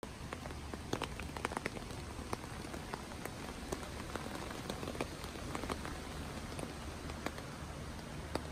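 Rain falling on a tent's fabric, heard from inside the tent: a steady patter with scattered louder drops tapping sharply on the fly, more of them in the first couple of seconds.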